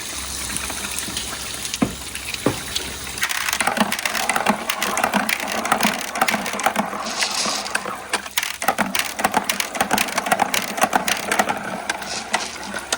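Water rushing through a water marble run, with marbles clicking and clattering along the track. There are a couple of single clicks early, then a dense run of clacks from about three seconds in.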